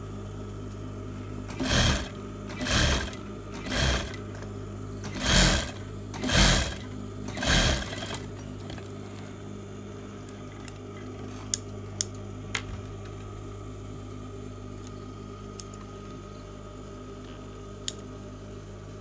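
Sewing machine stitching in six short runs of about half a second each, with a steady low hum underneath, edge-stitching a waistband lining down onto the garment. The runs stop about 8 seconds in, leaving the hum and a few light clicks.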